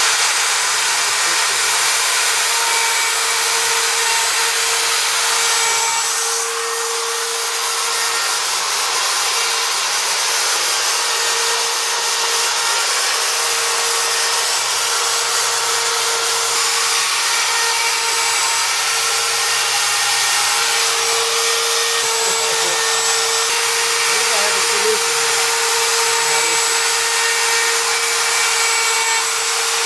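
CNC milling machine's spindle motor running steadily with a constant whine over a broad hiss while it cuts a plaque.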